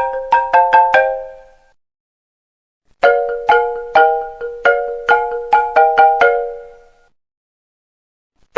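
iPhone ringtone: a melody of bright struck notes. One phrase ends about a second in and rings away, then after a short silence the phrase repeats from about three seconds to about six seconds and dies out.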